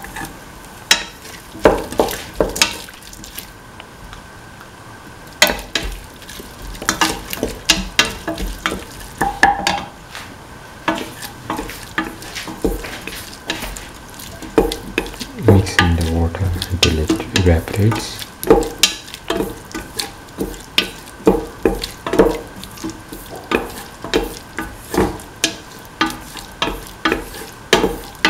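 A spatula knocks and scrapes against a stainless steel pan, about one to two strokes a second, as chopped tomatoes, onions and garlic sizzle in oil. A little added water is cooking off in the pan.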